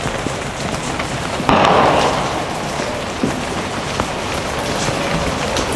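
Heavy rain falling steadily, a continuous hiss of drops on the surfaces around the shooting position. About one and a half seconds in, a brief louder rush of noise rises over it and fades within about half a second.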